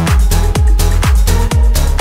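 Electronic dance music with a steady kick-drum beat under held synth tones.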